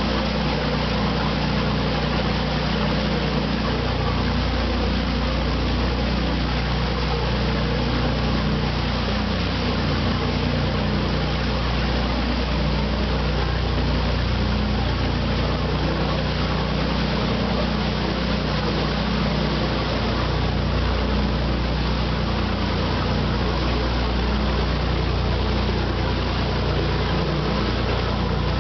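A cruise boat's engine droning steadily under way, a constant low hum, mixed with the rushing hiss of the churning propeller wash off the stern.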